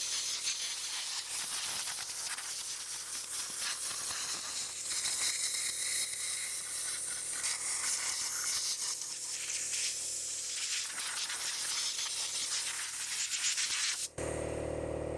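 Compressed-air blow gun hissing in fluctuating blasts as it blows dry, caked-on dirt and sludge off a Kohler Command CH16S engine. About fourteen seconds in, the hiss cuts off abruptly, leaving a steady low hum.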